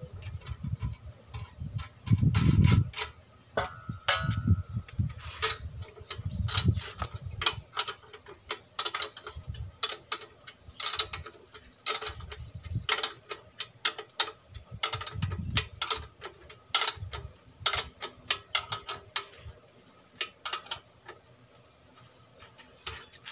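Irregular metallic clicks and clanks with a few dull low thuds from the metal parts of a hand pump being worked on.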